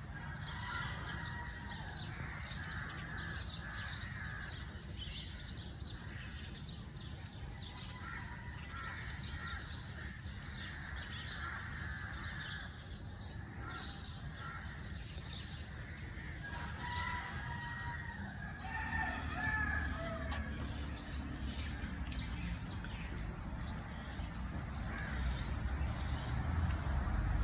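Crows cawing again and again over a steady low rumble, which grows louder in the last third.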